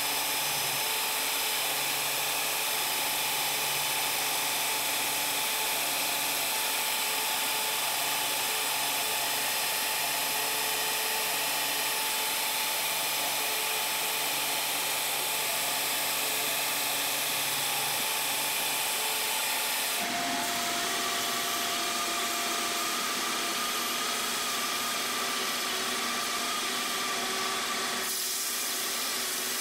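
A bandsaw runs steadily while cutting the outline of a pinned pair of resin knife handle scales. About twenty seconds in the sound changes, and by the end a belt grinder is sanding the scales' curved edge on a small contact wheel.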